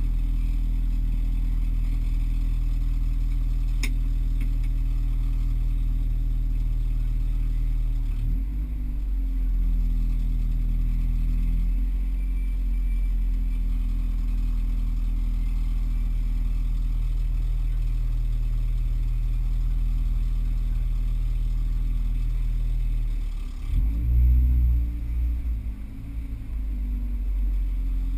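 Car engine idling steadily, heard from inside the cabin. The engine note dips and picks up again about eight seconds in, and near the end it briefly gets louder and shifts in pitch, as with a short rev.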